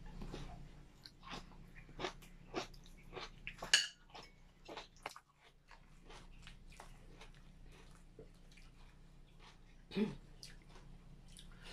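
Napa cabbage kimchi being stirred in a large bowl: soft, irregular wet crunching and clicking of the sauced cabbage and the spoon against the bowl, with a sharper knock about four seconds in and another near ten seconds.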